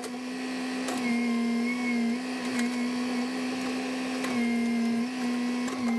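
A chainsaw running at high revs with a steady pitch, dipping briefly a few times as it takes load in a cut.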